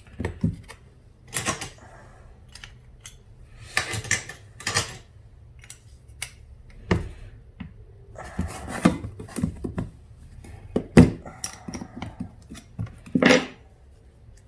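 Scattered clicks, taps and short scrapes of hand tools and small metal parts being handled as a riding mower's carburetor is taken apart on a workbench.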